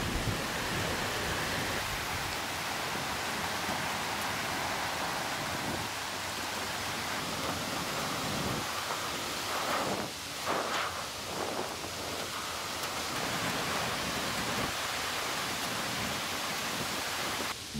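Heavy monsoon downpour in a thunderstorm: a steady rush of rain, swelling briefly louder a couple of times about ten seconds in.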